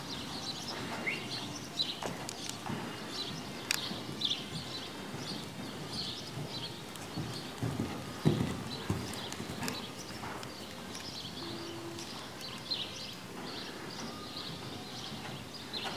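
A ridden horse cantering on soft sand arena footing: dull, muffled hoofbeats, with one louder thud about eight seconds in.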